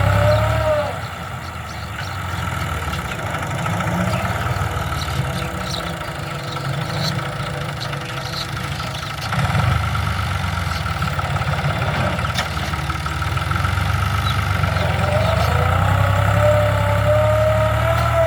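Tractor engine running while ploughing a field. Its pitch drops about a second in, then climbs back up a few seconds before the end as the engine speeds up again.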